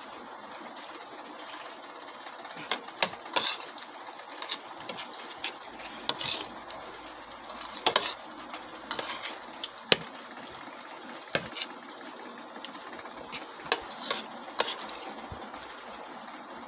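Forks and spoons clinking and scraping on plates while eating, irregular sharp clicks over a steady background whir.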